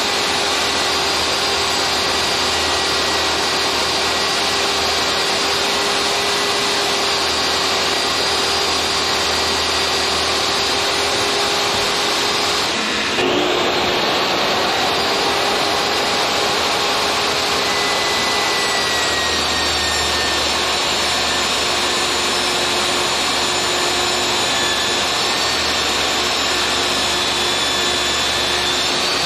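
DeWalt jobsite table saw running steadily with a dust-extraction vacuum attached, cutting 3/4-inch plywood. About halfway through the sound dips briefly and a motor winds back up with a rising whine.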